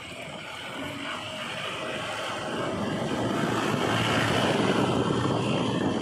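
JCB 3DX backhoe loader's diesel engine running, growing louder over the first few seconds and then holding steady.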